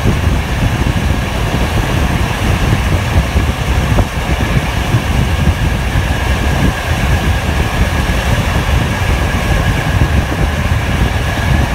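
Locomotive-hauled passenger train running along the line, heard from an open carriage window. A loud, steady rumble with a buffeting low roar and a thin, steady high whine on top.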